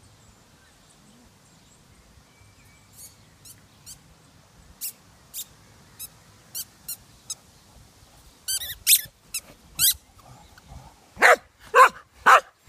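Cocker spaniel squeezing a squeaky ball in its mouth: a run of short, high squeaks starting about three seconds in and getting louder. Near the end the dog gives three loud barks, asking someone to play.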